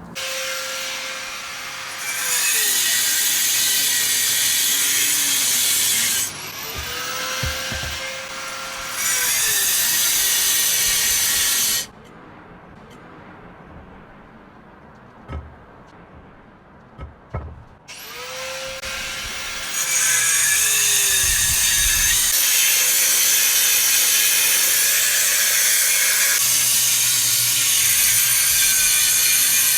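A 4.5-inch angle grinder scoring concrete pavers about an inch deep so they can be snapped: the motor spins up, the blade grinds through the stone in two loud stretches, and the grinder winds down about twelve seconds in. After a quieter pause with a few knocks, it starts again and grinds steadily to the end.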